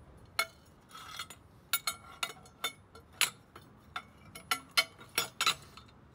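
Metal ladder tubes and stringers clinking and knocking against each other as they are handled and fitted together, about a dozen sharp irregular clinks.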